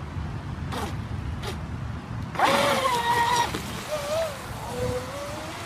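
Electric RC speedboat's brushless motor (TP Power 3640, 2080kv, on a 5S pack) throttling up about two and a half seconds in. A sudden rush of water spray comes with a high motor whine that rises, then holds and wavers as the boat runs at speed. The motor is turning at higher RPM on a newly changed propeller. Two short bursts are heard about a second in.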